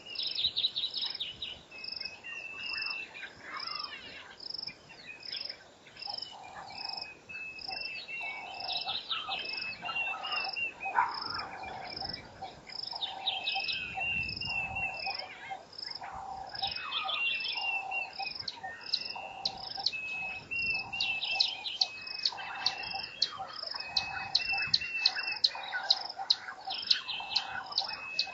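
Birds calling in several different phrases over a high chirp that repeats at an even pace, the steady chirping of an insect such as a cricket.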